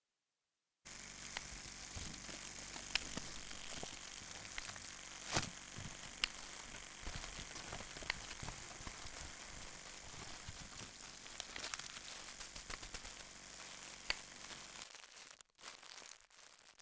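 Dense, continuous crackling with scattered sharper snaps, like sizzling or crinkling, made as a foley effect. It starts about a second in and thins to a few sparse crackles near the end.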